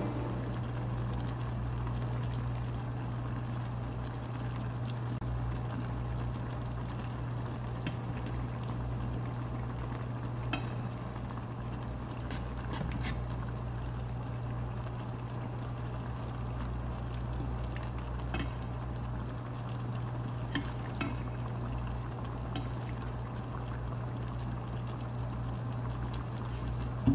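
Beef hot pot broth simmering in a wide pan, with a few light clinks of a metal ladle against the pan over a steady low hum.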